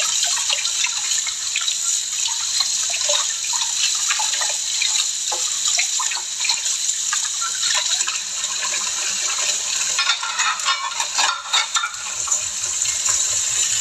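Tap water running steadily into a sink, with scattered clinks and knocks, busiest about ten seconds in.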